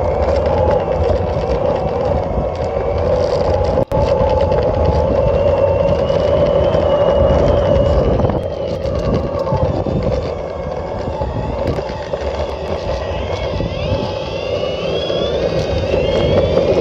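Boosted electric skateboard's rear drive truck making a loud, steady drone over the rumble of the wheels, with a thinner motor whine that rises and falls with speed and climbs near the end. The noise comes from the back truck and, by the rider's account, does not affect how the board performs.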